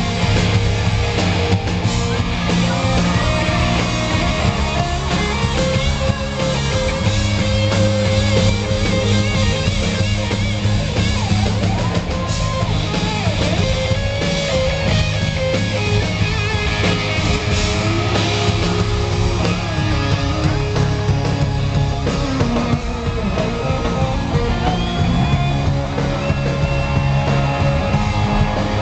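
Live rock band playing loud, an electric guitar lead line sliding in pitch over drums and bass, heard from among the audience.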